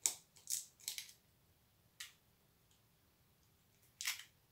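Chicken eggshells being cracked and pulled apart over a small ceramic bowl: a handful of short, sharp cracks and clicks, the loudest right at the start, more in the first second, one about two seconds in and another near the end.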